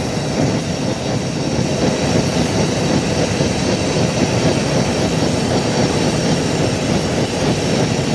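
Hot air balloon's propane burner firing in one long, loud, steady burn.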